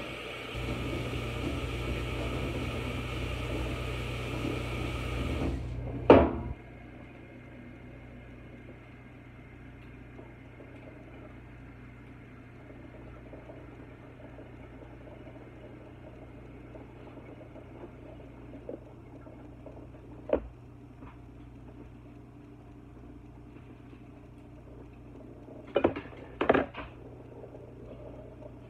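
A kitchen appliance running loudly with a steady hum, shutting off abruptly about five seconds in and followed at once by a sharp click. After that only a faint steady hum remains, with a single knock later and a few clattering knocks near the end.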